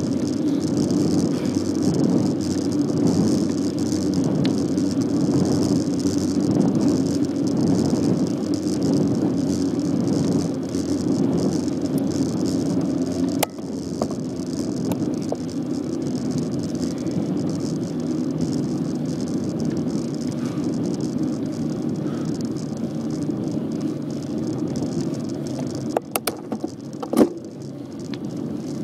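Bicycle riding at speed: a steady rumble and rattle from the tyres on the ground and the bike itself. It drops slightly about halfway through, and a few sharp clicks come near the end.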